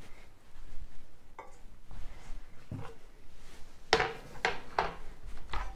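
Kitchen handling noises: a few light knocks, then a louder clatter about four seconds in as a baking tray is set down on a metal wire rack, followed by several more short knocks.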